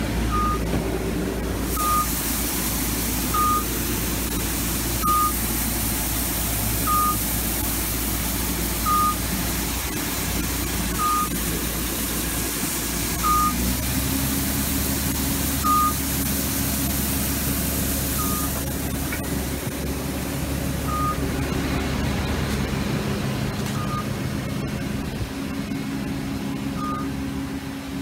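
New Holland TC5070 combine harvester running as its unloading auger pours sunflower seed into a trailer, with a hiss of falling seed over the engine's hum. A short electronic warning beep repeats throughout, about every second and a half at first and spacing out to about every three seconds by the end.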